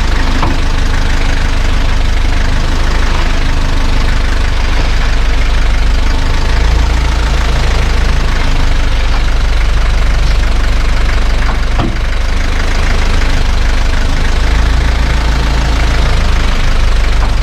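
Isuzu Elf NHR69 truck's diesel engine idling steadily while the power steering is put under pressure to check for leaks; the truck makes a strange noise when the wheel is turned, traced to power steering fluid leaking from the high-pressure hose. A single sharp click about twelve seconds in.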